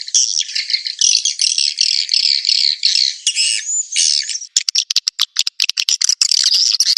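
Swiftlet call track used to lure swiftlets into a nest house: dense, high twittering chirps. About halfway through it changes to rapid, choppy chirps broken by brief gaps.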